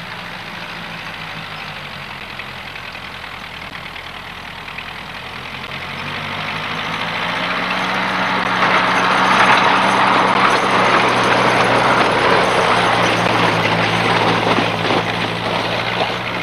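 Farm tractor engine running steadily, growing louder from about six seconds in as it comes closer, loudest around ten seconds, then easing slightly.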